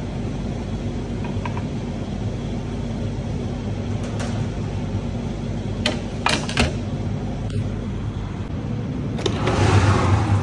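Steady hum of commercial kitchen ventilation, with a few light clinks of utensils on metal around the middle. Near the end a louder rush of noise comes up as the oven door is opened.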